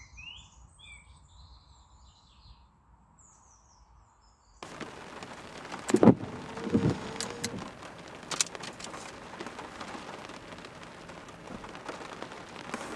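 Faint birdsong with a few short chirps. About a third of the way in, a steady hiss of rain and passing road traffic takes over, with a couple of sharp knocks.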